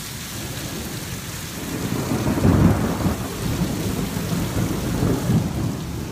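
Thunder from a severe thunderstorm rumbling over steady rain. The rumble builds about a second and a half in, is loudest shortly after, and rolls on before easing near the end.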